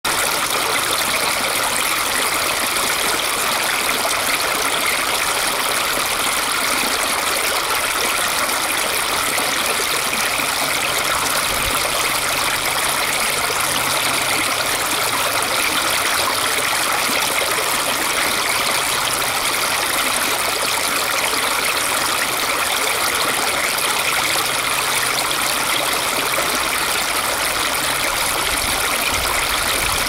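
Small brook babbling as shallow water pours over a rock lip into foamy bubbles, a steady, even rush of running water.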